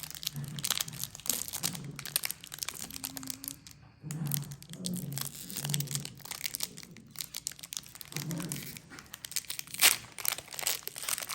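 Foil wrapper of a Pokémon card booster pack being torn open and crinkled by hand: a dense, irregular crackle with one sharper, louder crack near the end.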